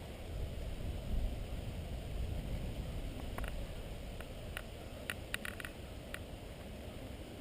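Wind buffeting the camera microphone as a steady low rumble, strongest in the first few seconds, with a scatter of faint clicks about halfway through.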